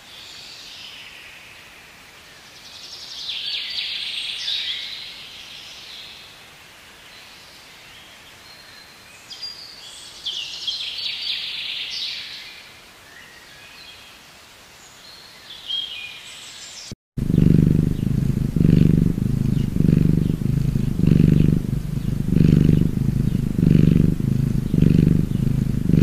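Songbirds chirping in three short bursts over a faint background hiss. After a sudden cut about two-thirds of the way in, a domestic cat purring close up, loud and steady, pulsing about once a second.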